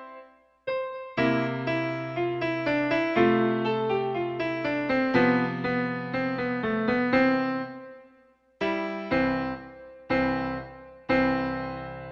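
Background piano music: a melodic phrase of struck notes that fades out around eight seconds in, followed by three separate chords, each left to ring and die away.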